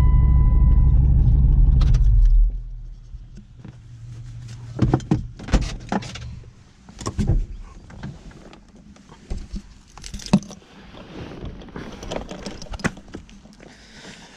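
A car engine running steadily, switched off about two seconds in, followed by scattered clicks and knocks.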